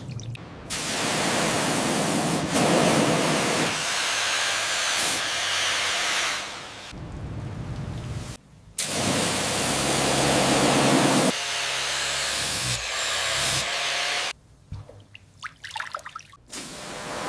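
Water spray jetting onto a rusted metal toy motorcycle: a steady hiss in several long runs that start and stop abruptly. About three-quarters through, a quieter stretch of scattered small taps and scrapes comes before the spray starts again.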